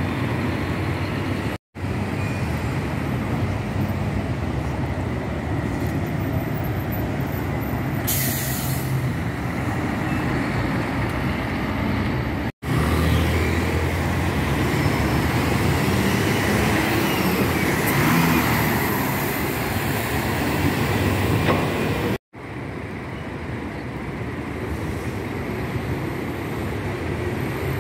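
Steady road-traffic noise of diesel coach buses and cars passing through an intersection, with a short high hiss about eight seconds in. The sound drops out briefly three times where the shots are cut.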